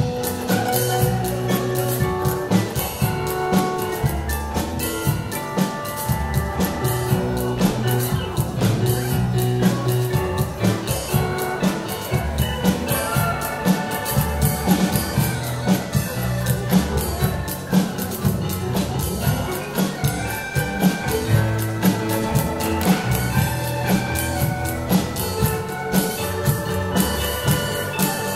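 Live contra dance band music: a Roland FP-7 digital piano and a drum kit playing a dance tune with a steady, even beat.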